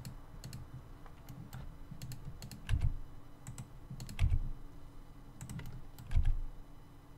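Scattered computer keyboard and mouse clicks, with three dull low thumps about a second and a half apart standing out as the loudest sounds.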